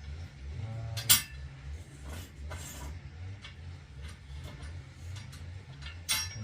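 Light metallic clinks and ticks, with a sharp clank about a second in and another near the end, from an adjustable steel prop being wound up to lift a roof purlin.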